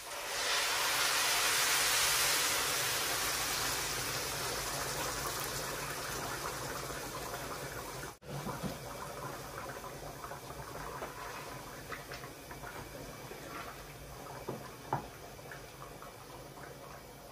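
Water poured from an electric kettle into a large pot of rice and curry, a loud gushing splash that slowly eases off. After a brief break about eight seconds in, a quieter steady wash of sound with a few light knocks as a wooden spoon stirs the pot.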